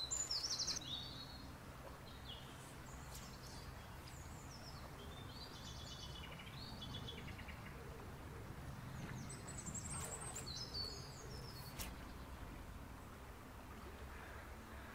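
Small songbirds singing several short, high, twittering phrases over a steady low background noise.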